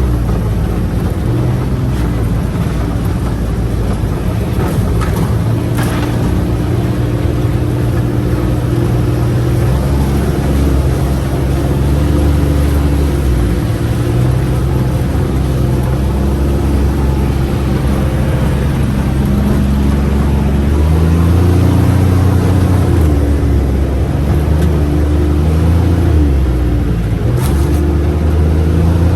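UTV engine running while driving, its pitch stepping up and down as the throttle changes.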